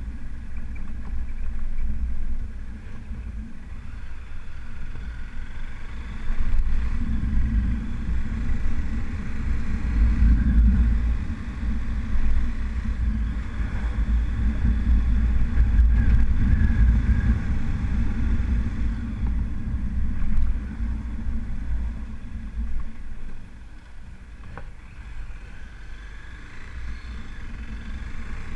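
Motorcycle riding along a street: the engine runs steadily with a low wind rumble on the microphone. It gets louder for a stretch in the middle and eases off near the end.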